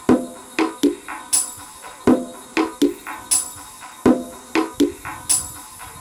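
Music: a sparse, repeating percussion pattern of sharp hits with a jingling top, about four strikes to a phrase, the phrase repeating every two seconds.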